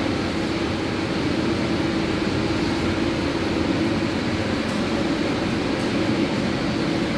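Steady rumbling machinery noise with a low hum, typical of an indoor pool room's air-handling system, with no change in level.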